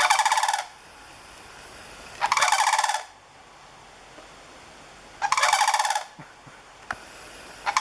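A pair of sandhill cranes bugling: three loud, rattling calls, each under a second long, about two and a half to three seconds apart.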